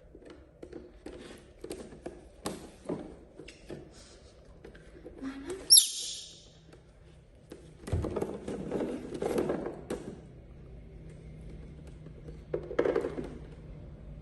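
Small clicks and taps, typical of a young monkey handling and eating food, with one brief high squeal about six seconds in. Low voice-like sounds come in twice later on.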